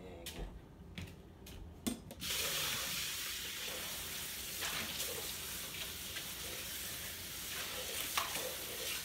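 A few light clicks and knocks, then a kitchen faucet turns on about two seconds in and runs steadily, its stream splashing into a plastic container being rinsed under it.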